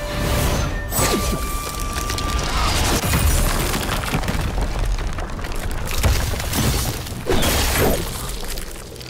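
Battle-scene soundtrack of magic sound effects: heavy booms and shattering crashes over dramatic music, with several sudden impacts and sweeping whooshes. It eases off near the end.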